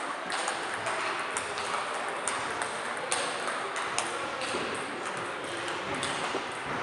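Table tennis balls clicking off bats and tables, several games at once, in a quick irregular patter of sharp clicks. A constant hum of hall noise and murmur lies beneath, echoing in a large sports hall.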